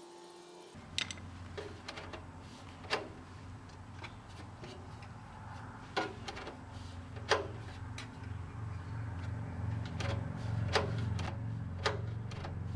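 Scattered sharp clicks and light knocks from the tractor's choke control and cable being worked in and out to test the new adjustment, over a steady low hum.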